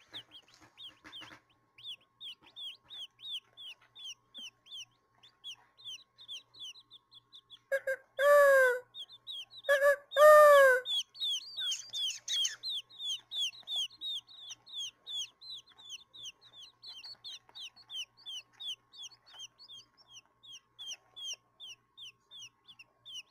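Baby quail chick peeping: a long run of short, high, falling peeps at about two to three a second, with two louder, longer falling calls about eight and ten seconds in.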